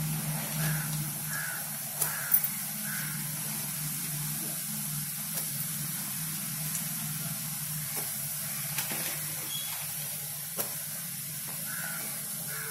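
Urad dal and rice chakli dough deep-frying in hot oil in an iron kadai: a steady sizzle of bubbling oil with a few sharp pops.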